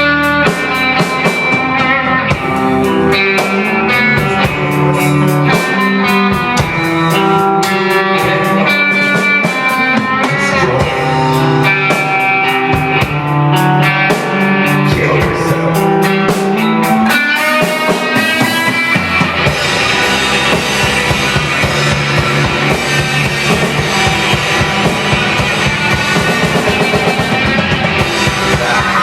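Instrumental passage of a rock song with guitar and a drum kit. The drumming is busy for most of the passage, and about two-thirds of the way through it gives way to a denser, sustained wall of guitar.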